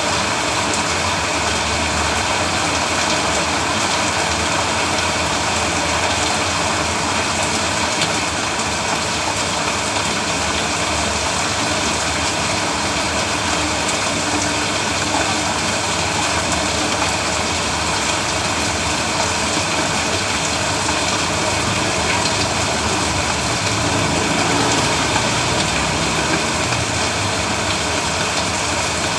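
Steady heavy rain, a dense even hiss with a low rumble underneath that does not let up.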